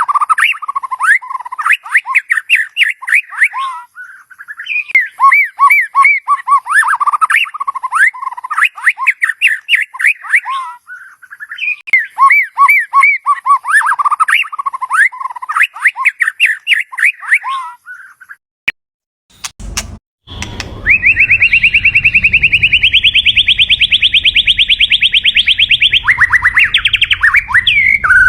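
White-rumped shama singing loud, varied warbled phrases in three bursts with short pauses between them. After a sudden break and a thump about two-thirds through, a long, fast, even trill rises slowly in pitch over a low rumble, then breaks into varied calls near the end.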